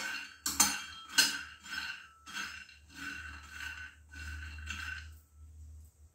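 Metal spatula stirring peanuts dry-roasting in a frying pan: the nuts rattle and the spatula scrapes and clinks against the pan in strokes about twice a second, with three sharp clinks in the first second and a half. The stirring stops about five seconds in.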